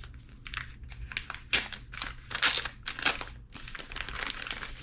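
Crinkly packaging being handled and pulled open, an irregular run of rustling crinkles with the loudest about a second and a half in and again around two and a half to three seconds in.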